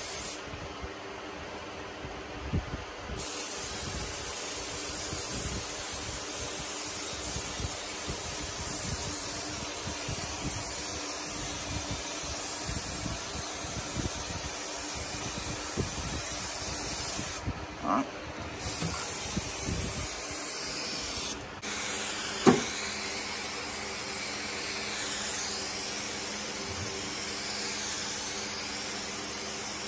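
Aerosol can of 3M spray adhesive hissing in long, steady sprays, with a few short breaks. One sharp knock about two-thirds of the way through.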